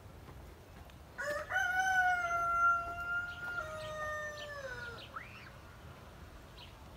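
A rooster crowing once: one long crow of about four seconds that holds steady and drops in pitch at the end.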